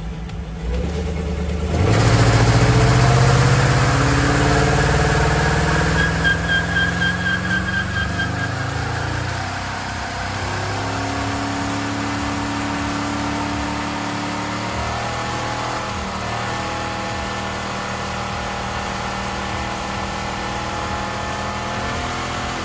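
Pontiac Trans Am V8 revved hard for a burnout: the engine note climbs about two seconds in over the hiss of spinning tyres, a high squeal pulses for a couple of seconds, and the engine then settles to a steadier, lower run.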